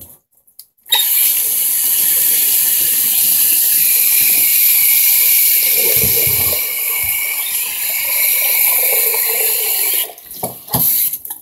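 Tap water running steadily and splashing into a bathtub to rinse a dog. It is turned on abruptly about a second in and shut off about a second before the end, followed by a few short knocks.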